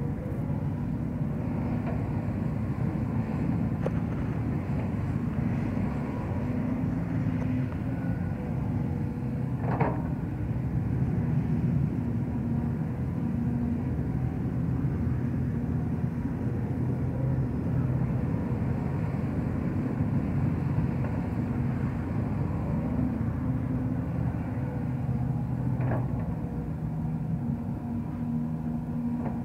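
Sumitomo hydraulic excavator's diesel engine running steadily under load as it digs dry soil and loads a crawler dump carrier, with a faint steady whine above the engine note. Two short sharp knocks stand out, about ten seconds in and again near the end.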